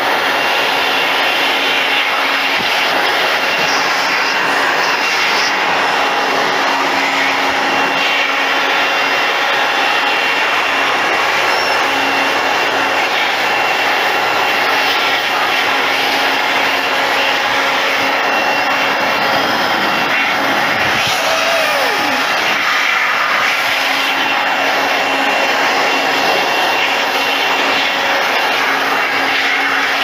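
Electric air blower running steadily with a constant whine, blasting air through the fins of a dehumidifier's dusty coil to blow the dirt out. A short falling whine comes a little past two-thirds of the way through.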